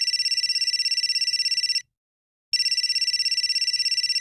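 Cell phone ringtone: an electronic ring, a rapid trilling tone in bursts of about two seconds. One burst stops about two seconds in, and after a short pause the next one starts.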